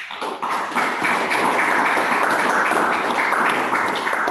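Audience applauding; the clapping breaks out suddenly and holds steady and loud.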